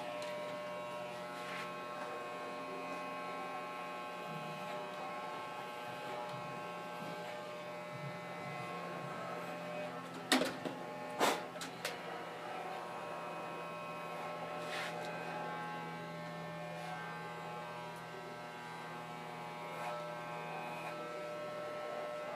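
Electric hair clippers buzzing steadily as they cut a boy's hair, with two sharp clicks about ten and eleven seconds in.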